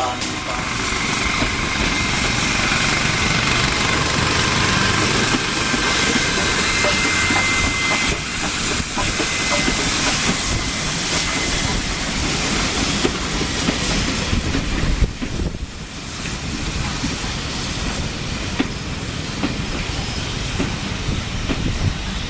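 Steam locomotive hauling coaches past close by: a steady rush of hissing steam over the rumble of wheels on the rails, with a thin high tone running through the first half.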